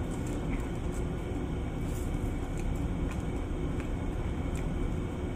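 A steady low rumbling hum of background noise, with a few faint light clicks as food is handled by hand.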